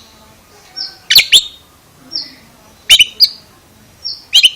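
Oriental magpie-robin (kacer) repeating the same short call three times, about a second and a half apart: a brief high whistle followed by two sharp, loud notes falling in pitch.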